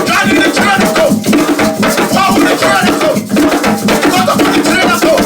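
Live group drumming with shaken rattles in a steady, dense rhythm, with voices singing along.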